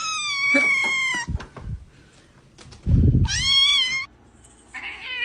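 A cat meowing: two long, drawn-out meows about three seconds apart, each sliding slightly down in pitch, with a third starting near the end. A dull low thump comes just before the second meow.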